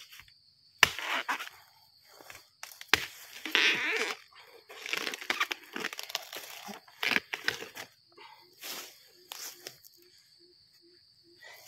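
Machete chopping through the base of a large bamboo shoot: two sharp strikes about two seconds apart, then crunching and tearing as the blade works through and the shoot breaks free.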